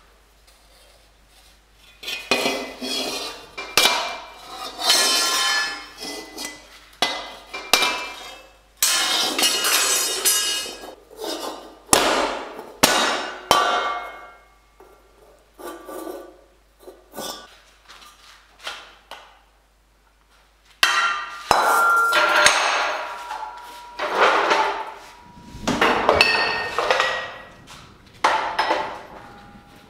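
Hammer striking steel plate in runs of rapid blows, the metal ringing after the strikes, with a lull of a few seconds past the middle: steel armor plate being hammered into shape.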